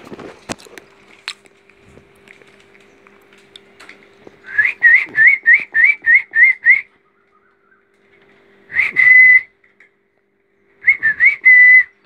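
Whistling: a quick run of about eight short rising notes, then two shorter phrases, each of a few quick notes ending on a held note.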